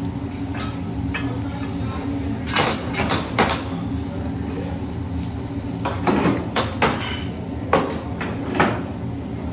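Metal utensils clanking and clinking on a hibachi griddle and plates: a string of sharp metallic knocks in two clusters over a steady low hum.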